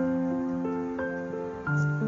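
Soft instrumental background music: held notes that give way to new ones every third to half a second.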